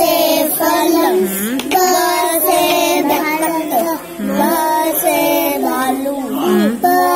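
Children's voices chanting the Hindi alphabet (varnamala) in a sing-song, letter by letter, with notes held briefly and short breaks between phrases.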